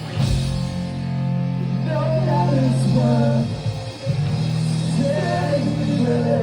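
Rock band playing with guitars and bass holding sustained chords, and a drum hit at the start. A voice sings over it in the middle, with a short break about four seconds in.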